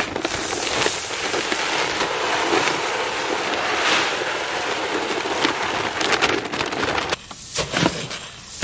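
Black oil sunflower seeds pouring from a bag into a plastic tote of corn, a steady rushing hiss of falling seed. About seven seconds in the pour stops and a wooden-handled tool stirs the seed in the tote, with short scraping knocks.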